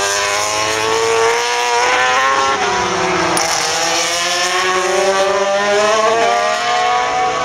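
Several racing motorcycles' engines running at high revs, overlapping, their pitch rising and falling with throttle and gear changes.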